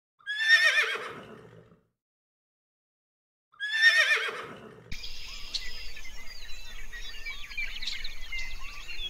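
A horse whinnies twice, each a loud, quavering call that falls in pitch. About five seconds in, the sound cuts abruptly to birds chirping over a steady background hiss.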